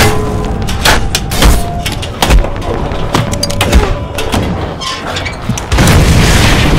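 A fight scene's string of hard hits and thuds, some of them with a brief metallic ring, as a stick strikes a round lid held as a shield. About six seconds in, a loud explosion booms and keeps rumbling.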